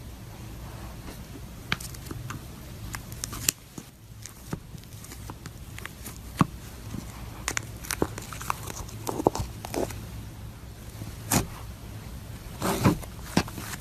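Crunchy slime being handled, giving irregular sharp crackles and clicks over a low steady hum.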